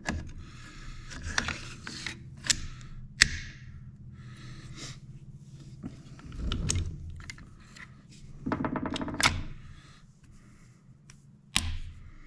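Metal parts of a rifle sliding, scraping and clicking into place as the charging handle and bolt are put back in. There are sharp clicks, the strongest about three seconds in and near the end, and a short buzzing rattle about nine seconds in.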